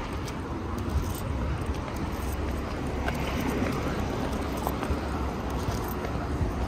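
Town street ambience: steady traffic noise with a low rumble and a few faint clicks.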